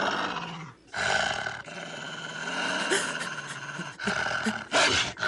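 A large wolf-like dog growling and snarling, with a short break about a second in.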